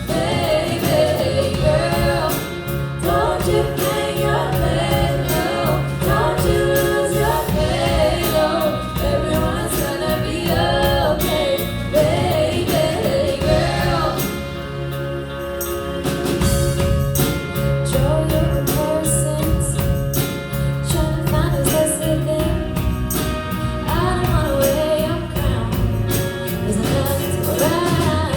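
A song performed with singing over instrumental backing, the voice moving in phrases of a few seconds.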